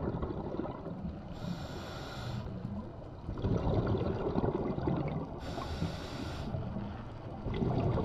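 Scuba diver breathing through a regulator, heard underwater. Two inhalations, each a hiss about a second long, come about four seconds apart, with the low rumble of exhaled bubbles between them.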